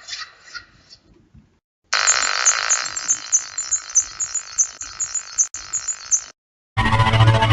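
Electronic sci-fi spaceship sound effect for a machine power light: a rapid string of high beeps, about four a second, over a steady hiss, lasting about four seconds. Near the end a louder electronic malfunction effect with a heavy deep hum starts.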